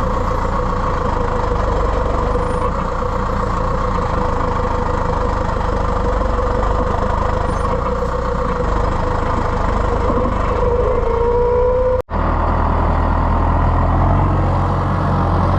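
Heavy farm vehicle engine running steadily, with a steady whine over the rumble that rises slightly in pitch near the end; the sound cuts out for an instant about twelve seconds in.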